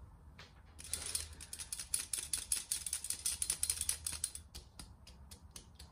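Cake flour being sifted through a round metal drum sieve into a stainless-steel bowl: a fast rattling clatter as the sieve is shaken, starting about a second in and thinning to scattered taps near the end.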